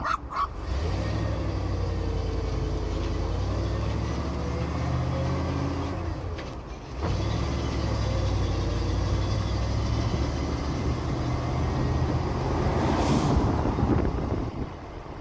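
Vehicle engine running as it drives off, a steady low drone with a brief lull about six and a half seconds in before it picks up again.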